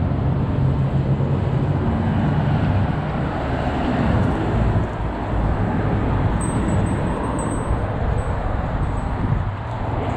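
Steady street traffic and vehicle engine noise, with a low engine hum that fades out about halfway through.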